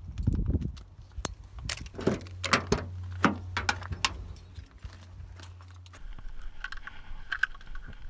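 Keys on a carabiner clip being handled, jingling and clinking: a dense run of sharp metallic clicks over the first few seconds, then a short cluster of lighter jingles near the end.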